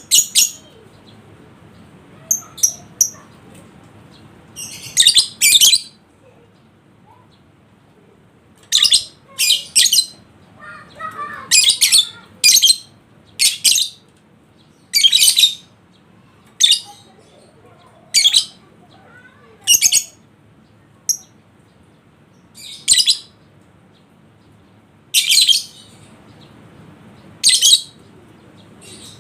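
Lovebird giving short, shrill, high-pitched calls, one at a time, repeated irregularly about every one to two seconds.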